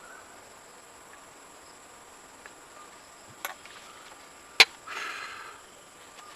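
Steady high-pitched chirring of crickets and other insects, with two sharp clicks a little over a second apart. The second click is the loudest and is followed at once by a short hiss.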